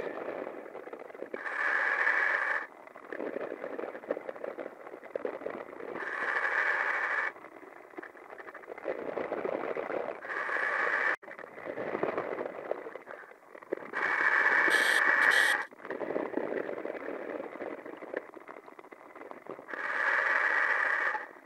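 A diver breathing on a demand regulator, heard over the dive communications line: a hissing breath about every four to five seconds, five in all, with a lower, rougher rush between breaths.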